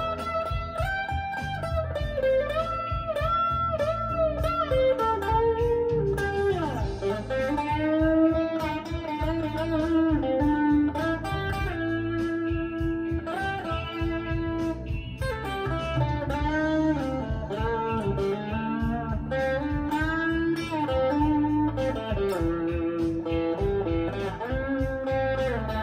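Electric guitar playing a bluesy lead melody with bent notes over a backing track of drums and bass.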